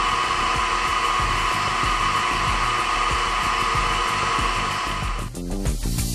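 CNC milling machine spindle running steadily with a mechanical edge finder spinning in it: a steady whir with a steady whine. A little over five seconds in it cuts out and music with a beat takes over.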